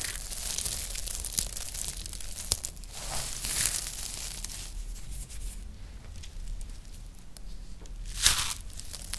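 Dry, crumbly recycled soap shavings crushed and rubbed between the hands, a crisp crackling crunch that is quieter for a few seconds past the middle. Near the end there is one louder crunch as a ball of dried soap strands is squeezed.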